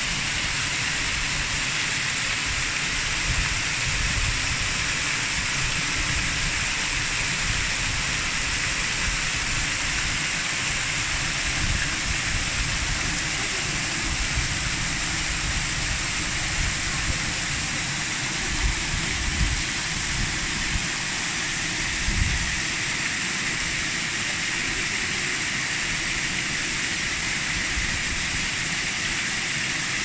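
Bigăr waterfall: water pouring off a rounded moss-covered stone as a sheet of many small streams and splashing steadily into the basin below. The splashing is a constant hiss with a low, uneven rumble underneath.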